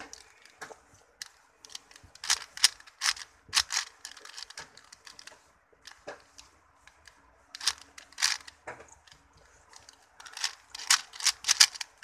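A 4x4 Rubik's cube being turned by hand: quick flurries of plastic clicks from its layers, three bursts with short pauses between.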